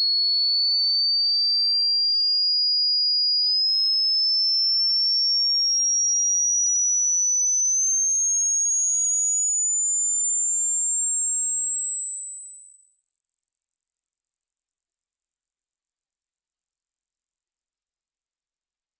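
Hearing-test tone: a single pure, high-pitched whistle climbing slowly and steadily in small steps, growing ever shriller at an even loudness. It is a pitch sweep used to find the highest pitch the listener can still hear.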